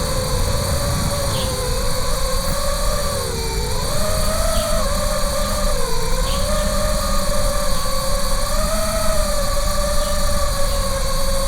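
FPV quadcopter's brushless motors and propellers whining, the pitch wandering up and down with the throttle, over a steady low rumble.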